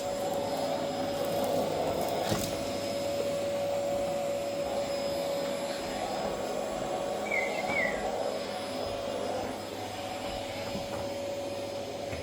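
A small electric motor running steadily with a constant whine over a rushing noise, easing off slightly near the end.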